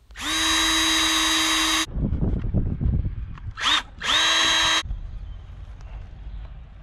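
Porter-Cable cordless drill/driver spinning up and running steadily as a seat slat is fastened to the wooden chair frame. There is one run of nearly two seconds, a low rumble of handling after it, then a brief burst and a shorter run about four seconds in.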